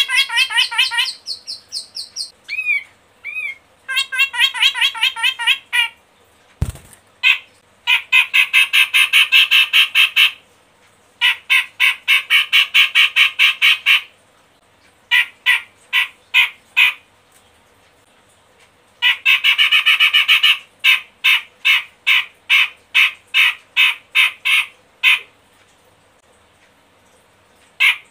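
Cucak jenggot, a white-throated Alophoixus bulbul, calling in full song: long bouts of rapid, harsh chattering notes, several a second, broken by short pauses. A single knock about seven seconds in.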